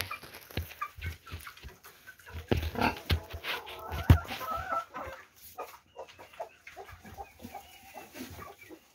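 Hens clucking, over scattered knocks and scuffling from a pig feeding at a wooden trough. A sharp knock about four seconds in is the loudest sound.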